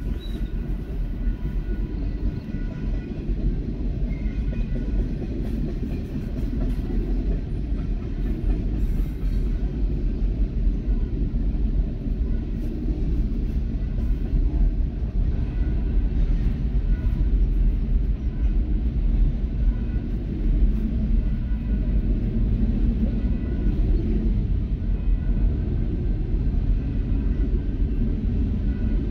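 Double-stack intermodal freight cars rolling steadily past: a continuous low rumble of steel wheels on rail.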